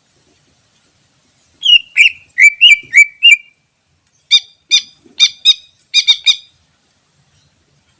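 Greater green leafbird (cucak ijo) singing: a run of about six quick, slurred whistled notes, then after a short pause about eight sharper, harsher notes.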